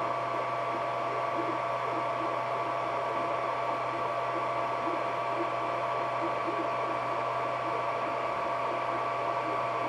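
Ender 3D printer running mid-print: its cooling fans make a steady whir with constant hum tones, and the stepper motors add short, irregular notes as the head moves.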